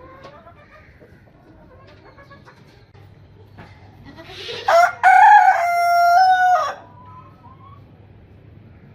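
A rooster crows once, about halfway through: a rising start, then a long held call that steps down before it stops.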